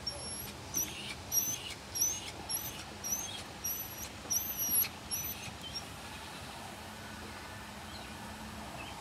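Pomeranian puppy giving a string of short, very high-pitched squeaking whimpers, about two a second, that stop a little over halfway through: the nervous puppy objecting to having its back feet handled for nail grinding.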